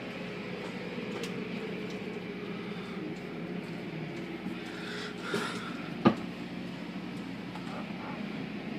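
Automatic car wash heard from inside the car: a steady rush of water spray and spinning cloth brushes against the body and windows, with one sharp thump about six seconds in.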